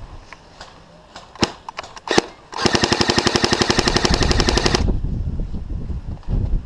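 Airsoft gun fire: a couple of single shots, then a rapid full-auto burst of about two seconds at roughly fifteen shots a second that cuts off suddenly, followed by a dull thump near the end.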